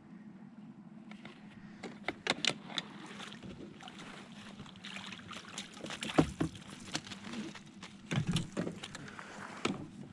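Water splashing and knocking at a one-man pontoon boat, in many irregular bursts that start about two seconds in, most likely a trout being brought in and handled. A faint steady hum sits underneath at the start.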